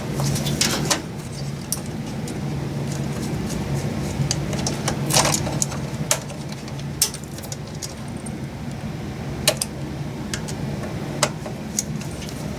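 Scattered light clicks and taps of a metal M.2 drive cover being handled and lined up over the drive on a motherboard, with a cluster of taps about five seconds in. A steady low hum runs underneath.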